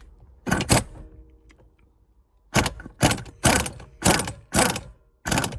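Pneumatic impact wrench (air gun) fired in short bursts: two near the start, then after a pause six more about half a second apart. It is hammering on a tight, Loctite-coated 10 mm hex steering wheel bolt to break it loose.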